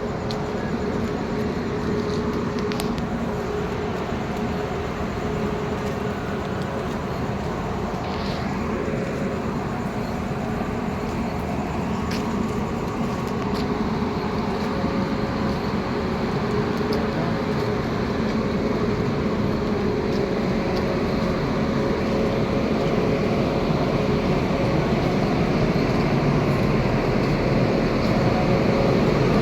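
Steady mechanical rumble of a running vehicle, with a few held tones, growing slowly louder.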